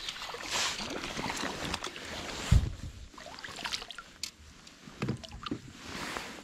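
A small hooked fish splashing at the water's surface as it is reeled to the side of the boat and swung out, with scattered clicks and one loud thump about two and a half seconds in.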